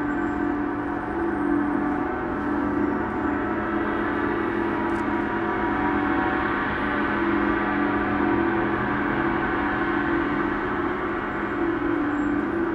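Large suspended gong played continuously: a dense, sustained ringing of many overlapping tones, held at a steady level with no single strike standing out.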